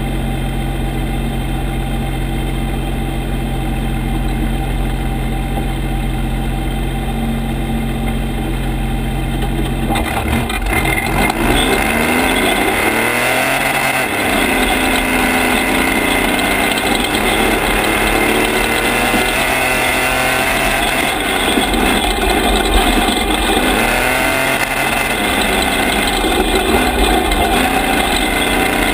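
Toyota Class 1450 desert race truck's engine idling steadily for about ten seconds, then revving up and pulling away. The pitch rises and drops several times as it goes through the gears, over a rush of tyre, gravel and wind noise.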